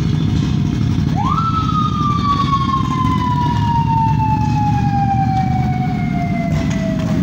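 A motorcycle siren rises sharply about a second in and then winds slowly down in pitch, over the low rumble of several motorcycle engines running.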